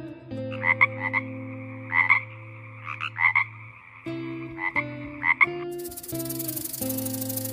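A frog croaking in short pulsed calls, often in pairs, every second or so over acoustic guitar music; about six seconds in the croaks stop and a steady snake hiss sets in.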